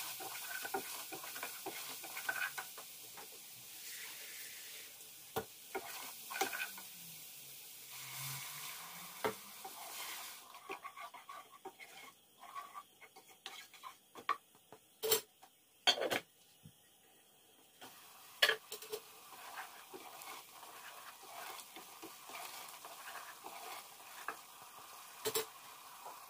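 Spices frying in oil in an aluminium saucepan, sizzling while a spoon scrapes and stirs them. The sizzle dies down about ten seconds in, once the pan holds liquid, and the spoon then knocks sharply against the pan a few times.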